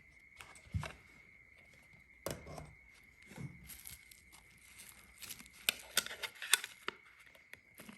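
Scattered light clicks, taps and rustling as lighters and their boxes are handled, busiest a little past the middle, over a faint steady high whine.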